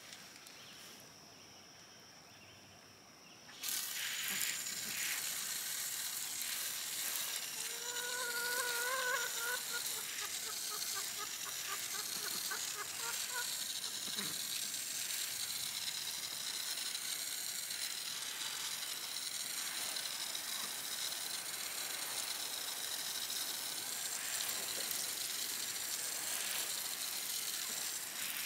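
Garden hose spray nozzle switched on about three and a half seconds in, then a steady hiss of water spraying onto bare soil. A bird calls briefly about eight seconds in.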